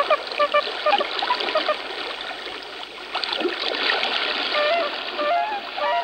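A flock of Bewick's swans (tundra swans) calling with many short, overlapping honks while water splashes as they run across the surface and take off.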